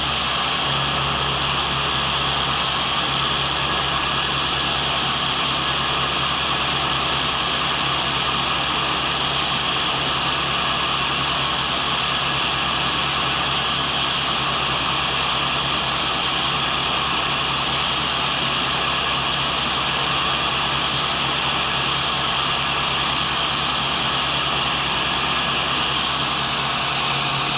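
Cincinnati tool and cutter grinder running steadily, its coarse wheel grinding a carbide blank: an even, unbroken hiss over a low motor hum.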